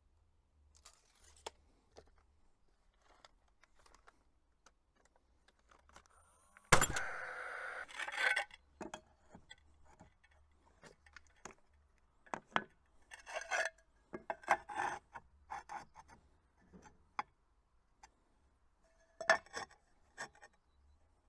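Hand work on building materials: scattered clinks, knocks and scrapes, with one loud clank about seven seconds in that rings briefly, and bursts of scraping a few seconds later and near the end.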